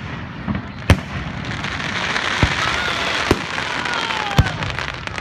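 Aerial fireworks going off: sharp bangs about a second apart over a dense hissing crackle that swells through the middle and stays loud.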